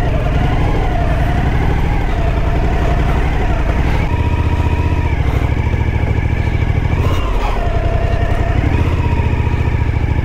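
Motorcycle engine pulling through soft sand, its revs rising and falling unevenly as the rider works the throttle.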